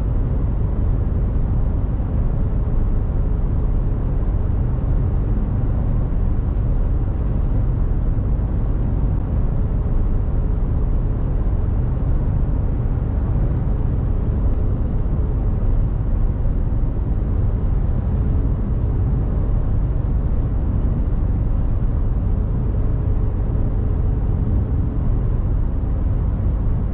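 Mercedes Actros truck's diesel engine and road noise heard from inside the cab while driving: a steady, even rumble.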